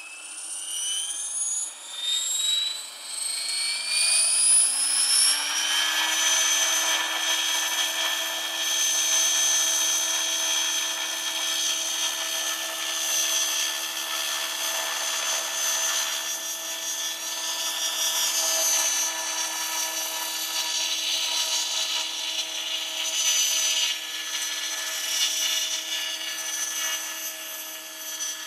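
Radio-controlled model helicopter spooling up: the whine of its motor and rotor rises in pitch for about six seconds, then holds steady at running speed.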